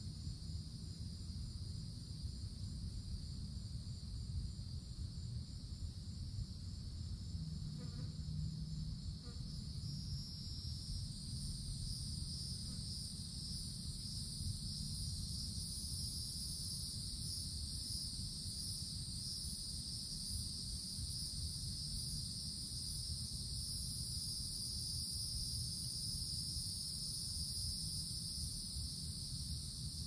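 A chorus of cicadas buzzing steadily and high, swelling louder about ten seconds in, over a low steady rumble.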